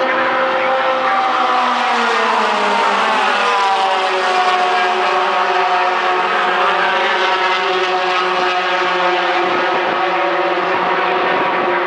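A pack of racing pickup trucks passing at speed, many engines running hard together; their pitch falls in the first few seconds as the field goes by, then holds steady.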